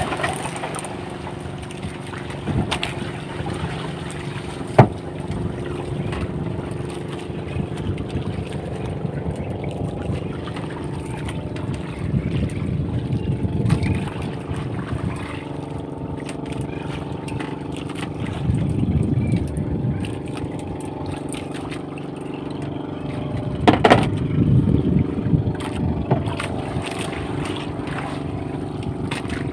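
A small fishing boat's engine running steadily under way. A rushing noise swells now and then over the engine, and there are two sharp knocks, one about five seconds in and one near the end.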